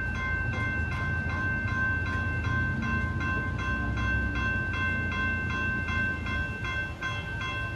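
Railroad crossing warning bell ringing in a rapid, even rhythm as the crossing activates for an approaching train. A low engine rumble from traffic runs underneath it.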